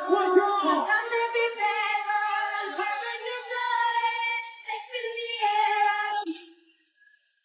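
A high voice singing a melody with long held and sliding notes, with little or no accompaniment underneath; it stops about six and a half seconds in.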